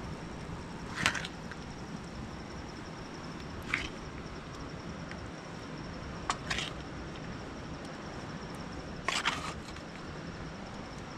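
A handful of short, sharp cracks or snaps, about two to three seconds apart, the last a quick double, over a steady hiss.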